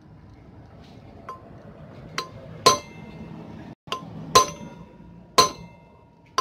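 Hammer blows on a steel drift, tapping a new ball bearing down into a motorcycle's cast front-wheel hub until it seats flush. About six sharp metallic strikes, irregularly spaced, each with a brief ring. The later strikes are the loudest.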